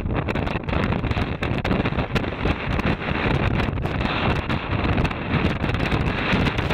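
Wind buffeting the microphone: a loud, low rush of noise that rises and falls in uneven gusts.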